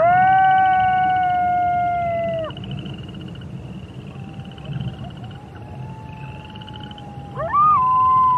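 Wolves howling: a loud howl rises, holds for about two and a half seconds and drops away, a fainter howl follows, and near the end another howl rises and holds. A steady high pulsing trill runs underneath.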